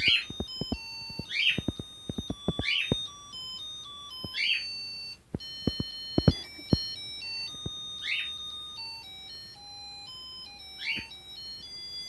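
Musical souvenir fridge magnet playing a tune in thin, beeping electronic tones, with scattered clicks and knocks as magnets are handled on the fridge.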